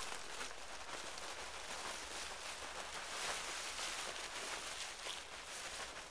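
Faint, continuous rustling and crackling of dry fallen leaves as they are gathered and heaped over a tarp to camouflage it.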